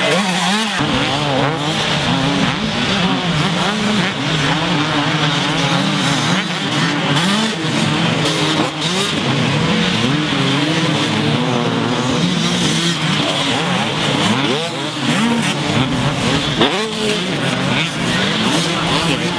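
Two-stroke motocross bikes racing past, their engines revving up and down over the jumps, several engine notes overlapping and rising and falling in pitch.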